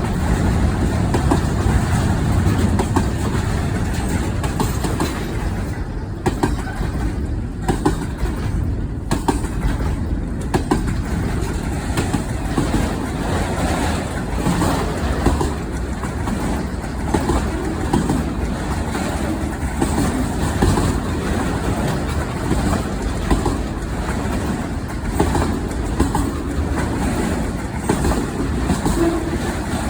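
Norfolk Southern freight train rolling past: a steady rumble of the cars, with repeated clicks of the wheels over the rail joints.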